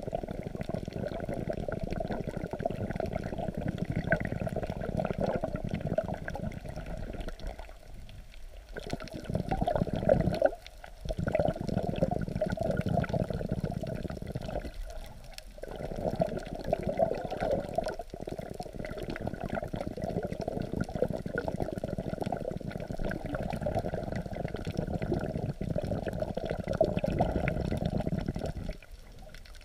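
Muffled sea water sloshing and rushing around a camera held just under the surface and rocked by the waves. The noise is low and dull, and it falls away briefly several times.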